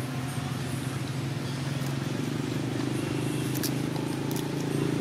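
A motor running steadily with a low hum, growing slightly louder in the second half, with a few faint clicks about three and a half seconds in.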